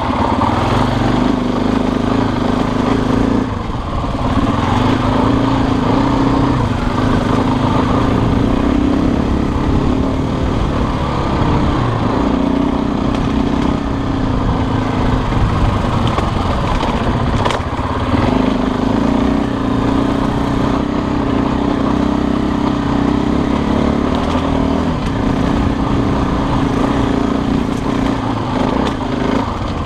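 Motorcycle engine running steadily under way, its note dipping briefly three times as the throttle eases off or the gear changes.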